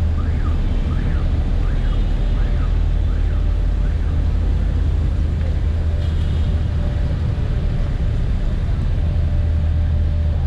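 Busy street traffic with a steady low rumble. An electronic alarm wails over it, its pitch rising and falling about every half second, and stops about three seconds in.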